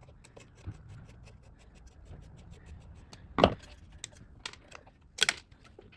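Small plastic clicks and scratching from handling the casing of an Ampac Viper fire-alarm sounder as it is taken apart, with two sharper snaps about three and a half and five seconds in.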